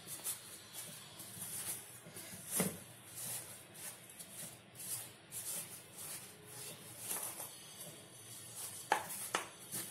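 A plastic scoop scraping and knocking inside a steel pot as hardened steamed wheat flour is scooped and broken up. It is a run of soft scrapes with a few sharper knocks, one a few seconds in and two close together near the end.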